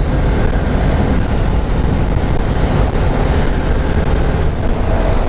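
Wind rushing over the microphone of a TVS Apache RR310 ridden at about 70 km/h, with the bike's engine and tyre noise running steadily beneath it.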